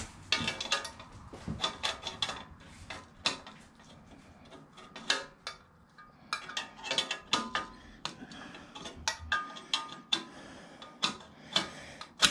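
Irregular metallic clinks and taps, some ringing briefly: a brass conduit bush and a bush tool being worked into a threaded connection on a metal electrical back box, a little at a time.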